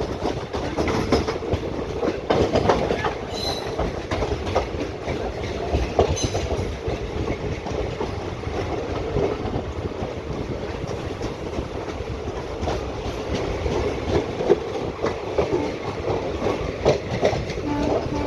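Passenger express train rolling into a station: a steady rumble of wheels on the rails, with irregular clicks and knocks as the wheels run over rail joints.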